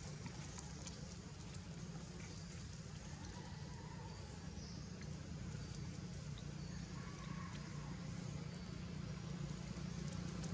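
A steady low hum with a few faint ticks over it, slowly growing louder.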